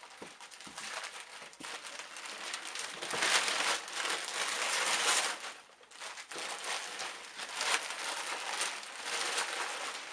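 Gift wrapping paper being torn and crumpled off a large box: a dense, continuous crackling, loudest in the middle with a short lull about six seconds in.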